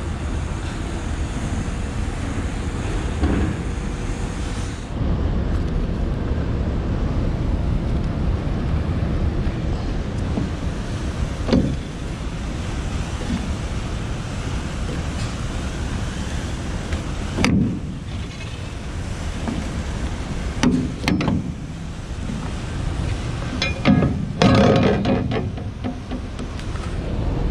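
Steady wind rushing on the microphone on top of a cement tanker, with a few sharp metal clanks as the clamp handles of the tanker's manhole lid are undone and the lid is opened.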